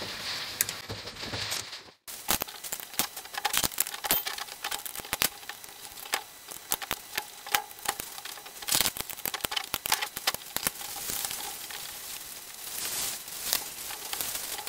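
Small, irregular metallic clicks and taps of steel studs being handled and threaded into the top face of an aluminium Weber 40 IDTP carburetor body.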